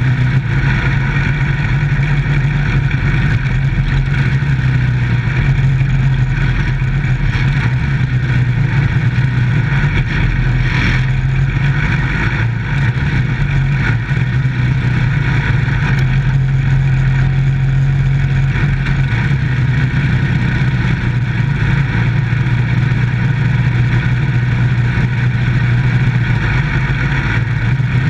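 Dirt-track micro stock race car's engine running hard at racing speed, heard from inside the cockpit with road and wind noise over it. It eases briefly about halfway through.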